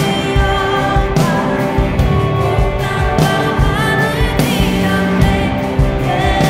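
Live worship rock band playing: drum kit and guitars under a woman singing the lead in Korean.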